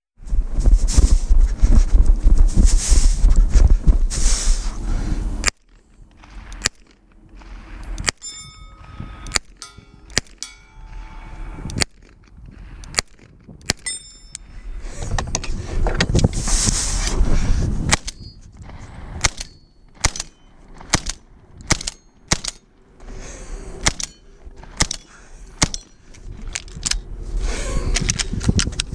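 A string of gunshots fired at a steady working pace, some followed by the ring of steel targets being hit. Stretches of loud rushing noise take up the first five seconds or so and return about halfway through.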